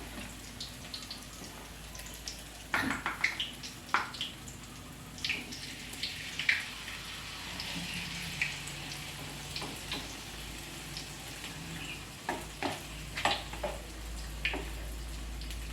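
Battered small fish frying in hot oil in a pan, a steady sizzle with frequent short clinks and scrapes of a utensil against the pan.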